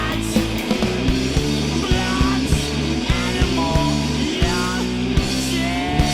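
Rock band playing live: drums hitting steadily under sustained bass and guitar.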